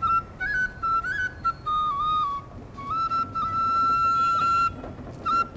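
Background music: a single high, ornamented melody line of short notes, with one long held note in the middle.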